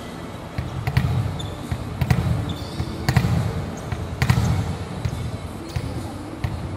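Volleyballs being hit and bouncing on a hard court floor: a string of sharp smacks, roughly one a second, each followed by a low boom echoing around a large arena.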